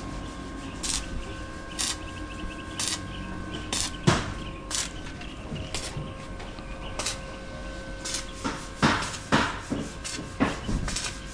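Scattered knocks and clacks of things being handled and set down, about a dozen at uneven intervals: the sharpest about four seconds in, with a quicker run of them near the end. A faint steady hum lies underneath.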